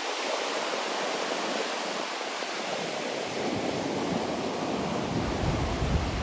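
Ocean surf washing onto the beach: a steady rush of breaking waves. Low wind rumble on the microphone comes up near the end.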